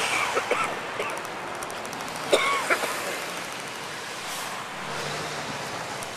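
Passing road traffic on a busy street: a steady rush of cars and vans going by. A few short, high sounds that glide in pitch cut through it near the start and again about two and a half seconds in.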